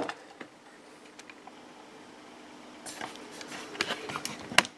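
Quiet workbench room tone with a faint steady hum, then from about three seconds in small clicks and rustles of objects being handled, ending in a sharp click near the end.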